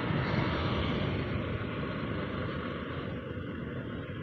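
Motorcycle riding along at a steady speed: engine running under a steady rush of wind and road noise.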